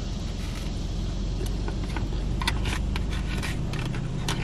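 Steady low hum of a car idling, heard inside the cabin, with a few short clicks and scrapes of a plastic fork against a foam takeout container while eating, mostly in the second half.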